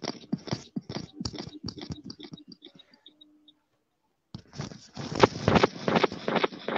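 Computer keyboard typing heard over a video-call microphone: quick runs of key clicks that stop for about a second midway, then start again.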